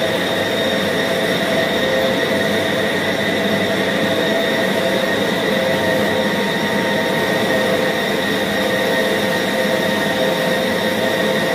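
Electric meat band saw running steadily while cutting through pork, a constant machine noise with a steady whine that does not change.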